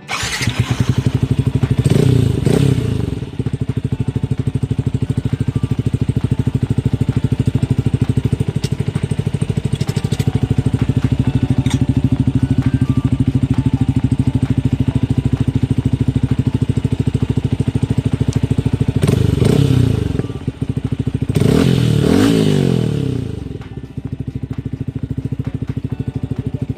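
Motorcycle engine with an MVR1 aftermarket exhaust pipe starts suddenly, then idles with a steady exhaust note. It is revved up and back down about two seconds in, and twice more in quick succession about three-quarters of the way through.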